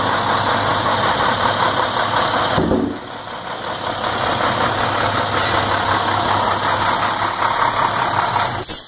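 Plow truck's engine idling steadily, with a brief dip in level about three seconds in.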